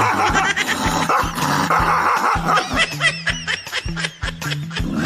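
Background music with a steady beat, with dogs yipping and barking over it, a run of short high calls about halfway through.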